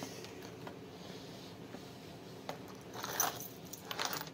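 Small metal items clinking and rattling as they are handled, a few times in the last second and a half, over a steady room hum.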